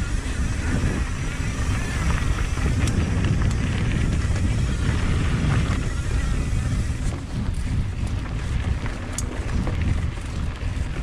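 Mountain bike being ridden downhill on a dirt trail: wind buffeting the microphone over a steady rumble of tyres on the ground, with a few sharp clicks along the way.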